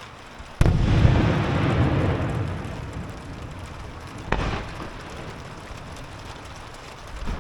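Aerial firework shells bursting: a loud boom about half a second in that rolls on as a rumble for a couple of seconds, then a second, sharper boom about four seconds in.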